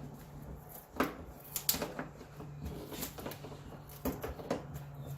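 Scattered clinks and knocks of hand tools at work on the car, about seven sharp strikes at uneven spacing, over a steady low hum.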